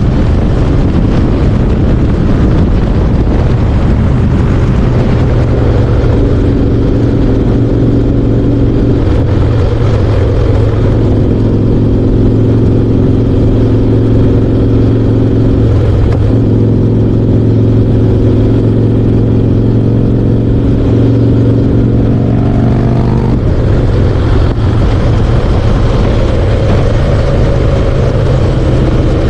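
Harley-Davidson Softail Slim's V-twin engine running loud and steady while riding, with wind rushing over the microphone. The engine note breaks or shifts briefly three times.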